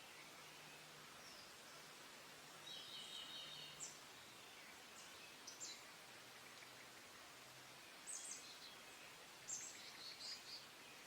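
Wild songbirds calling faintly over a steady background hiss: a short trill about three seconds in, then scattered high, quick chirps in small clusters toward the end.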